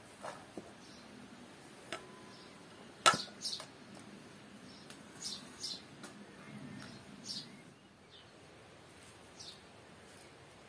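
Quiet outdoor background with a few short high birds' chirps, and light clicks and taps as handfuls of chopped herbs are moved into a frying pan, the sharpest click about three seconds in.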